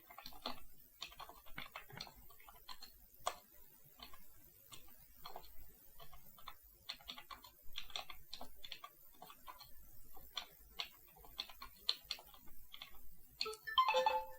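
Computer keyboard typing: faint, irregular quick keystrokes as a text is typed in, with a brief louder sound near the end.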